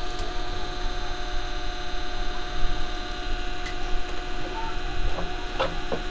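Steady electrical hum made of several steady tones, with a few short light clicks near the end.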